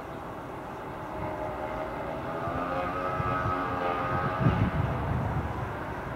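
Class 440.2 (Alstom Coradia Continental) electric multiple unit approaching slowly over points. It makes a whining tone that swells through the middle, and its wheels give a loud low knock about four and a half seconds in.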